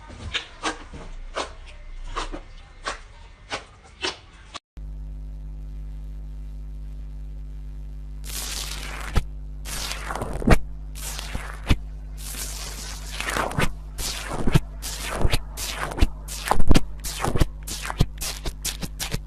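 Slime being squeezed and kneaded by hand, making sticky squishing and popping crackles. At first the squishes come one or two a second; after a sudden change about four and a half seconds in, a steady low electrical hum sits under a faster, louder run of crackling squelches from about eight seconds on.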